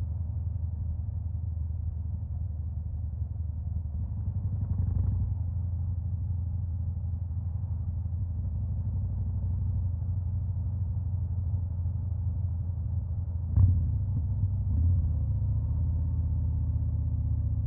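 2021 Harley-Davidson Fat Boy's Stage 2 V-twin engine idling with a steady low rumble, swelling slightly a few seconds in; near the end there is a sharp pop, followed by a short blip of the throttle.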